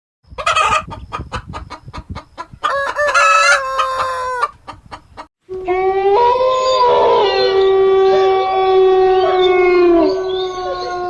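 Chickens clucking in quick, clicky calls, then a rooster crowing: a shorter crow about three seconds in and a long, drawn-out crow through the second half.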